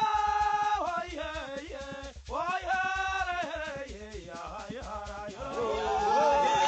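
Zimbabwean traditional Jerusarema Mbende music: singing with hosho gourd shakers and drums keeping a steady, quick beat.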